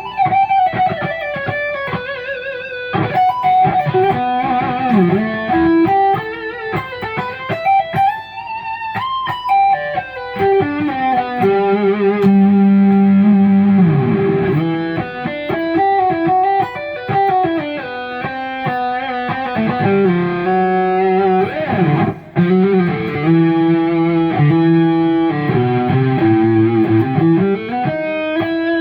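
Electric guitar (Kiesel Crescent with Kiesel Polarity active pickups) playing a lead through a Mesa amp channel with added delay and distortion: sustained single notes with bends and vibrato, heard through a phone's microphone in the room.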